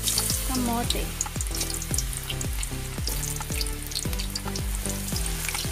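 Sweet potato slices frying in hot oil in a wok: steady sizzling with fine crackling. Background music with a steady beat runs underneath.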